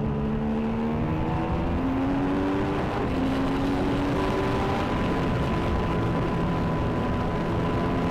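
Formula 1 car's turbocharged V6 hybrid engine at speed, heard from the driver's helmet camera. Its note climbs and steps as the driver changes gear.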